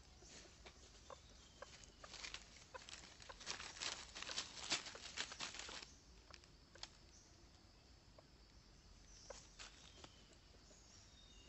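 Red junglefowl stepping and scratching through dry fallen leaves: faint, crisp leaf crackles, densest between about two and six seconds in, then only scattered.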